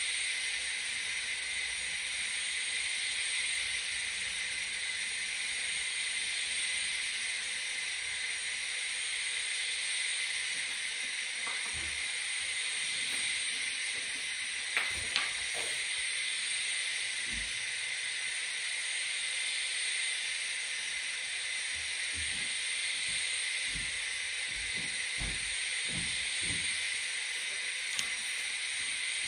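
Sound-equipped N scale models of Union Pacific GTEL 4500 gas-turbine locomotives, standing with their turbines running: a steady, high turbine hiss from the models' small speakers. Two short clicks come about halfway through.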